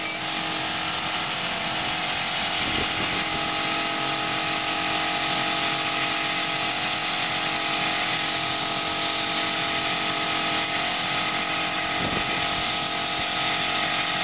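Laser cutting machine running while it cuts leather: a steady machine hum with several held tones over a constant hiss.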